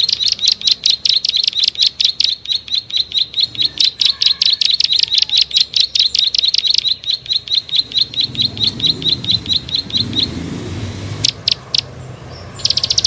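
Prenjak sawah (prinia) giving its rapid clicking call, about eight sharp notes a second in a long unbroken run. The run stops about ten seconds in, a few single clicks follow, and a fresh run starts near the end. A low rumble sits underneath for a few seconds before the pause.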